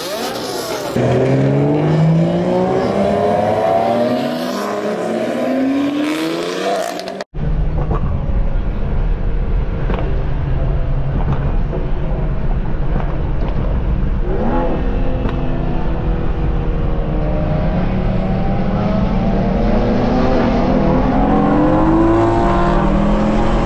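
Car engines revving and accelerating, with the pitch rising and falling several times. About seven seconds in, the sound switches to inside the cabin of a BMW M850i, where its twin-turbo V8 drones at a steady roll-race pace and then climbs steadily in pitch under hard acceleration.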